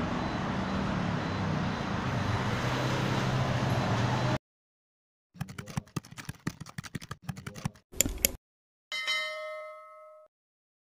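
Steady background noise with a low hum, which cuts off about four seconds in. Then comes the end-screen animation's sound effects: a run of quick clicks, two sharp clicks, and a single bell ding that rings for about a second and fades out.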